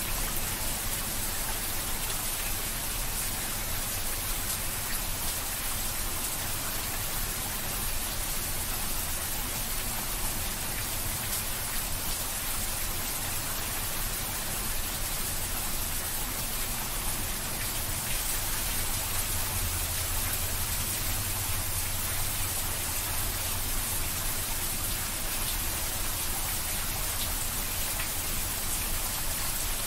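Heavy rain falling steadily, the drops splashing onto a puddled flat surface close by.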